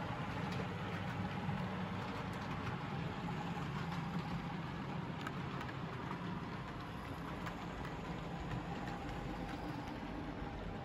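00 gauge model trains running on the layout track: a steady motor hum and wheel rumble with a fine rolling hiss, and a few faint clicks.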